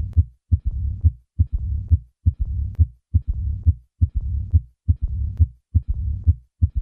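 Heart sounds of severe aortic regurgitation: the heart sounds, a third heart sound and a low-pitched diastolic rumble, the Austin Flint murmur. The beats repeat at about 70 a minute.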